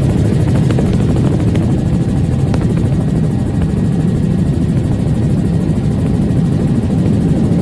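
Helicopter engine and rotor noise heard from aboard, loud and steady with a fast, even pulse.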